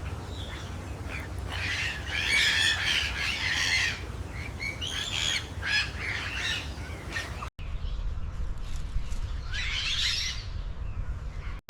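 Birds squawking in three loud, harsh bouts over a steady low rumble.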